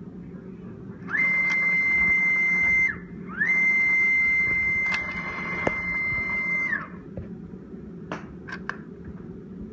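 Motor driving an automated assembly machine's linear slide in two moves. Each move gives a whine that rises in pitch, holds steady and falls away as the slide stops, the second move longer than the first. A few light clicks follow near the end.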